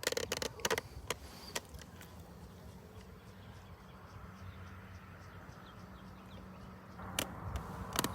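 Faint outdoor background with a low steady rumble. Sharp clicks and knocks come in a cluster in the first second and a half and again near the end: handling noise on a handheld microphone.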